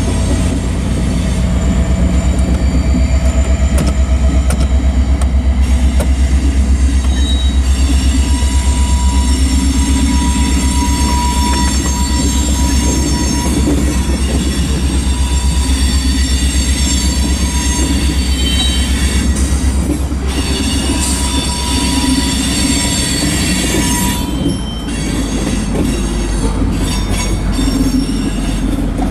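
Freight train of tank cars rolling past, the steel wheels rumbling steadily on the rails, with thin high-pitched squealing from the wheels on the rail.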